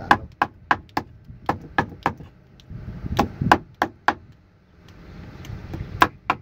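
Heavy cleaver chopping whole fish on a wooden board: a run of sharp chops, two or three a second, a pause of about two seconds, then two more chops near the end.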